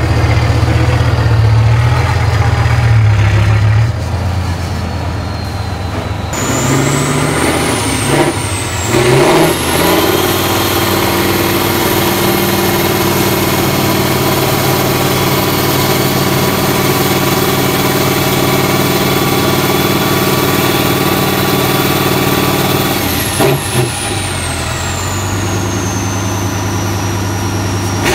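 Tatra 6x6 trial truck's diesel engine working hard up a steep dirt bank. It rumbles low for the first few seconds, then is revved up and held at steady high revs. A high whine rises about six seconds in, holds, and falls away near the end.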